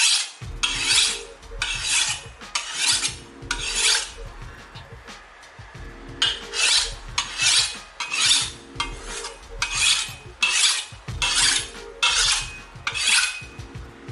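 Steel knife blade drawn repeatedly across a hard abrasive surface to sharpen it, with a gritty rasp on each stroke. About five strokes, a pause of roughly two seconds, then about nine more at a little over one a second.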